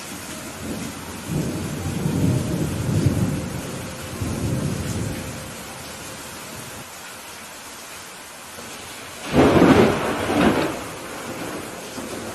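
Steady rain falling during a thunderstorm. A low rolling rumble of thunder swells over the first few seconds, then a louder, sharper thunderclap comes about nine seconds in, peaking twice before dying back into the rain.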